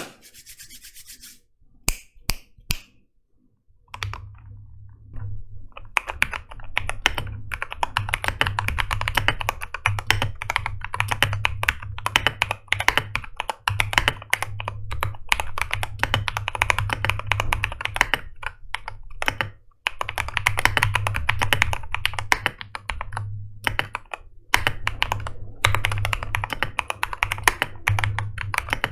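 Mechanical keyboard fitted with Akko ASA-profile keycaps being typed on. A few separate keystrokes come first, then fast, continuous typing with two brief pauses.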